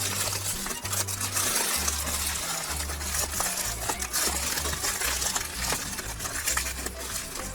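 Aluminium foil crinkling and rustling as a double layer of it is folded and crimped closed by hand, with many small crackles.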